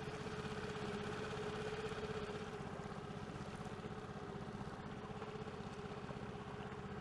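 6 hp Yamaha outboard motor running steadily at an even throttle, driving a small inflatable skiff along.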